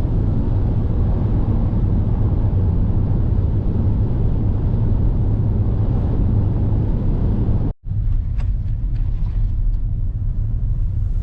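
Steady low rumble of a car driving, road and engine noise heard from inside the moving car. It drops out for an instant near the end.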